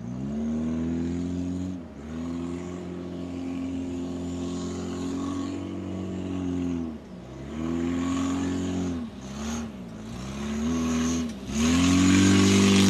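Toyota 4K 1.3-litre four-cylinder engine of a converted Corolla beach buggy revving up and easing off several times as it slides and spins on sand. The last rev near the end is the loudest and highest.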